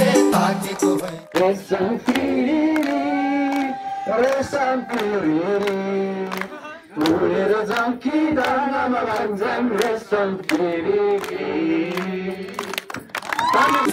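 Music: a group of voices singing a melody together, the rhythmic accompaniment dropping out about a second in and coming back at the very end, with a brief break in the singing about seven seconds in.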